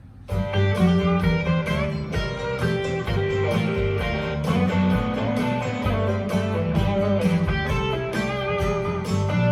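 Guitar-led music with a strong bass line and a steady beat, starting abruptly just after the start, played back through a speaker dock under test.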